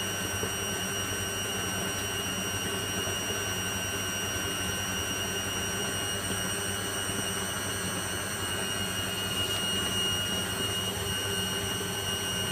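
Servis Slimline 308S washing machine spinning at a steady speed: an even motor whine with a hum beneath it.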